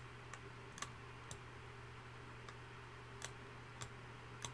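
Computer mouse clicking faintly and irregularly, about eight clicks, over a low steady hum.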